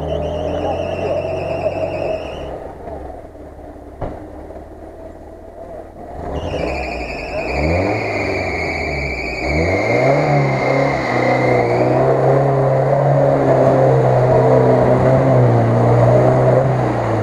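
UAZ-469 off-roader's engine revving hard as it churns through a deep mud-and-water rut, wheels spinning. The revs drop away for a few seconds, climb in two quick sweeps, then hold high, with a high wavering whine over the engine early on and a falling whine in the middle.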